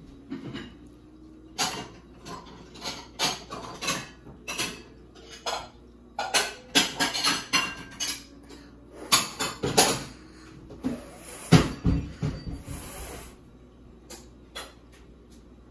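Kitchen clatter: dishes and cutlery clinking, with knocks and thumps, in a string of separate sharp sounds. The heaviest thumps come about three quarters of the way in, along with a brief hiss.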